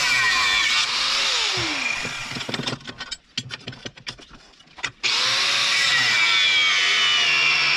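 Angle grinder grinding a steel saw blade, winding down about two seconds in. A few light metal clinks follow while the C-clamp holding the blade is adjusted. The grinder then starts again abruptly about five seconds in and grinds steadily.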